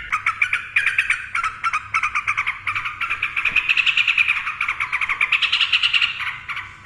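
Sooty-headed bulbul singing its rapid 'ropel' song: a long unbroken run of quick, high notes, about six or seven a second.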